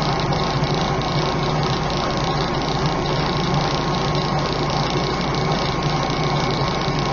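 Recorded ship noise: steady engine and propeller noise, with a constant low hum and a steady higher tone. It cuts off abruptly right at the end.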